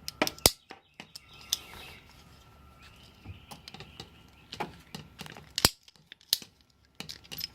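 Short piece of 1/2-inch PEX plastic tubing being slit lengthwise by hand: scattered sharp clicks and snaps of the tool and tubing, with a quieter scraping stretch in the middle.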